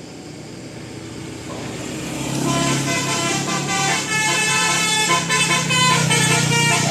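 A bus draws near, its engine growing louder. From about two seconds in, its multi-tone Basuri telolet horn plays a tune of changing notes.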